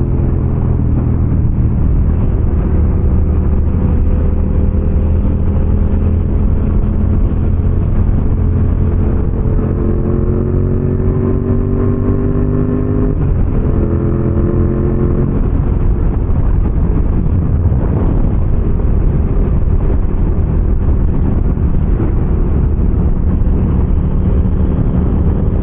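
Yamaha MT-07 motorcycle's parallel-twin engine running under way, with wind and road noise. Around the middle its pitch rises twice as it accelerates, with a shift between the two rises.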